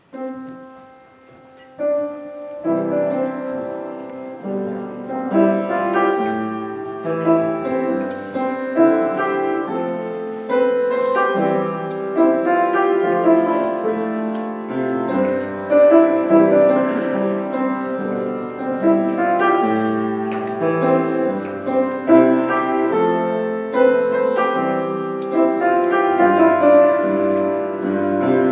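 Slow instrumental keyboard music played in sustained chords. It opens with a few single notes and fills out to full chords about two and a half seconds in.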